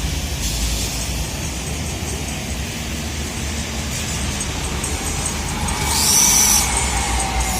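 Busy road traffic with buses and cars passing, a steady low engine rumble, and a brief loud high-pitched hiss about six seconds in.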